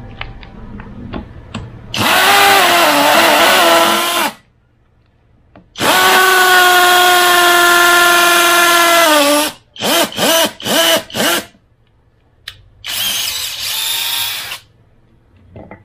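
Nanwei cordless drill boring a hole into a wooden plank: two runs of a few seconds each with a steady motor whine that sinks as the trigger is released, then a string of quick trigger blips, then a shorter run. Light handling clicks come first.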